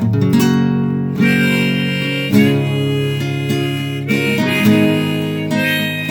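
Chromatic harmonica playing sustained notes and chords, with what sounds like acoustic guitar accompaniment; fresh attacks come about every second or so.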